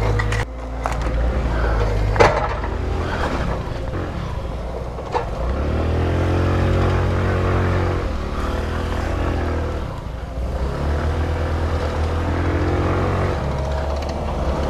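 Honda moped's small engine running and revving up and down as it is ridden over rough dirt, over a steady low engine drone. A sharp knock comes about two seconds in and another about five seconds in.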